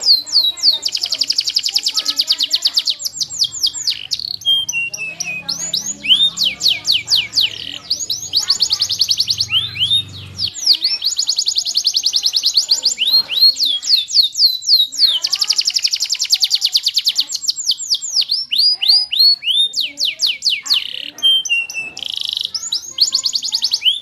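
Yellow domestic canary singing: rapid trills of fast-repeated, sharply falling notes, delivered in phrases of a few seconds with short breaks between them.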